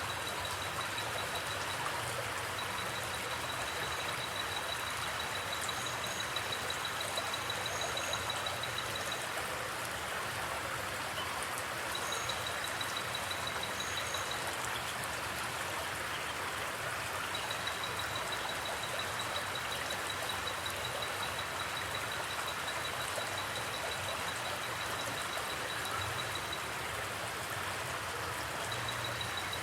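Forest creek water flowing steadily, an even rushing sound. Over it a high, fast-pulsing trill comes and goes several times.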